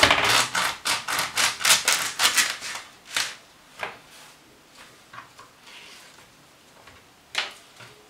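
Kitchen knife sawing through the husk-wrapped tip of a microwaved ear of green corn on a plastic cutting board: a quick run of strokes, about four or five a second, for the first three seconds. After that come a few single rustles as the cut husk is pulled open.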